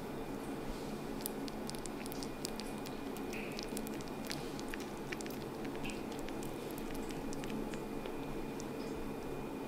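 Small scattered clicks and soft rustling of newborn kittens squirming and pawing at each other on a fleece blanket, over a steady low hum.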